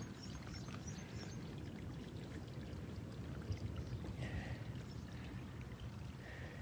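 A small freshwater stream flowing into the lake through reeds, a steady, low rush of running water.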